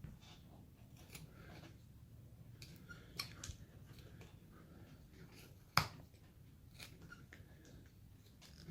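Carving knife cutting into basswood: faint, scattered small clicks and slicing scrapes of the blade taking off chips, with one sharper click just before six seconds in.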